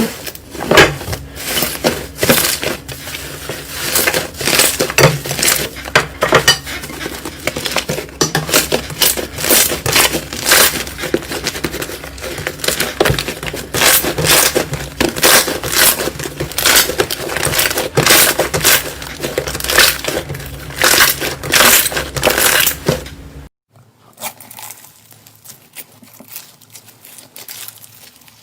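Slime being squeezed and pressed by hand, giving dense, loud crackling and popping. Near the end it cuts abruptly to a much quieter stretch of faint crackles.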